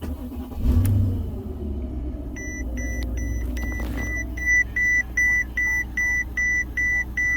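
2012 Mercedes-Benz S550's V8 cranks and catches at the push of the keyless start button, surging briefly about a second in, then settles into a steady idle. From a couple of seconds in, a dashboard warning chime beeps repeatedly, about three times a second.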